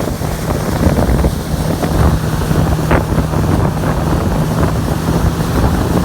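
Jet ski engine running at a steady hum, buffeted by heavy wind on the microphone.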